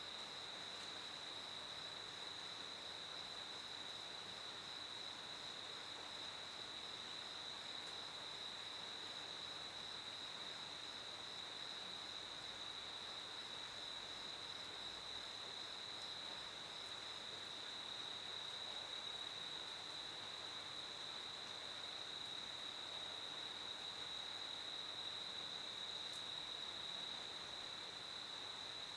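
Crickets chirping in a steady, unbroken high-pitched trill over a faint background hiss.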